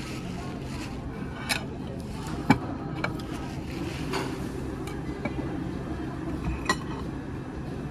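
Scattered clinks and clicks of a metal utensil and crab-leg shells against a ceramic plate, about half a dozen, the sharpest about two and a half seconds in, over a steady restaurant background hum.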